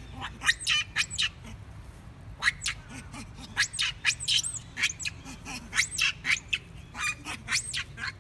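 Rapid, repeated high-pitched squeaky animal calls, several a second, each a quick sweep up and down in pitch.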